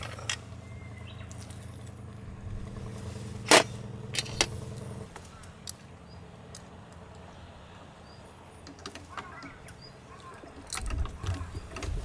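A steady low motor hum that stops abruptly about five seconds in, with a few sharp clinks near the middle.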